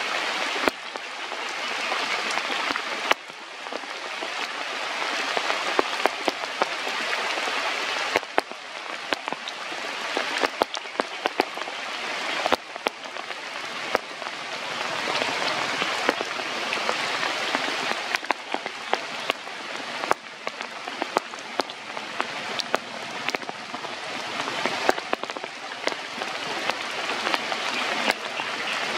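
Steady rain falling, its level swelling and easing, with many sharp drops ticking close by.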